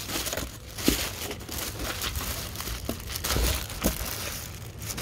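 Hands rummaging through and handling plastic LEGO pieces: irregular rustling with scattered light clicks.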